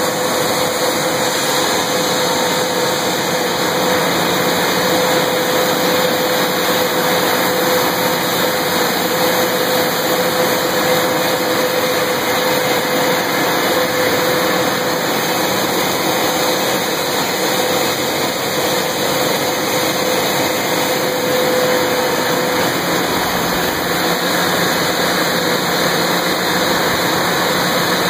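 Underground mining machinery running: a loud, steady mechanical drone with a held tone through most of it that drops out near the end.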